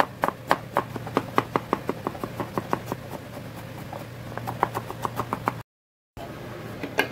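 Knife chopping vegetables on a cutting board in a quick, even rhythm of about four strokes a second, over a low steady hum. The chopping cuts off abruptly near the end, and after a brief silence there is a single knock.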